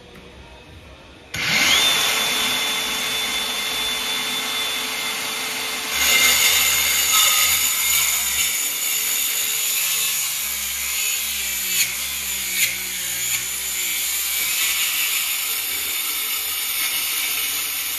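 Cordless compact circular saw (DeWalt) starting up about a second in with a rising whine that settles to a steady pitch. From about six seconds in it is cutting into the wooden floor, louder and rougher, with a couple of sharp clicks, while a return-air opening is cut out.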